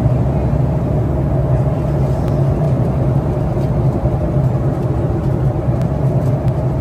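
Steady low drone inside a jet airliner's cabin in flight: engine and airflow noise with an unchanging hum.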